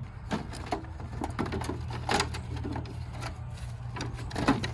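Irregular clicks and taps of a socket ratchet with an extension working a bolt, with parts being handled, over a steady low hum.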